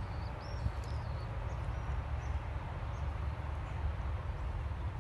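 Steady low outdoor rumble, like wind or distant traffic, with small birds chirping faintly and high, mostly in the first second or so.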